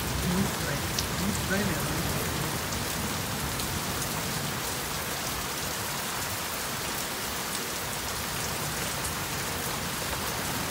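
Steady rain falling hard during a thunderstorm, an even unbroken hiss of drops.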